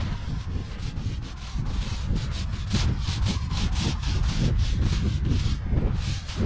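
Paint roller rolling wet paint over a rough concrete wall: a quick run of scratchy, rasping strokes through the middle, over a steady low rumble.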